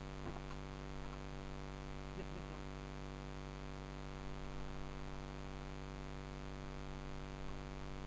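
Steady electrical hum with a constant hiss, with no other clear sound.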